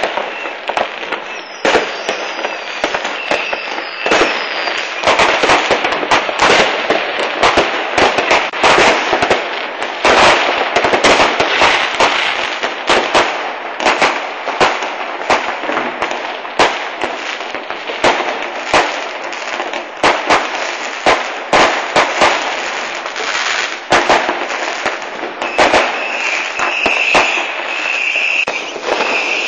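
Many fireworks and firecrackers going off at once: a constant crackle and rumble from all around, broken by frequent sharp bangs at irregular intervals. Near the end a high tone repeats about once a second over the bangs.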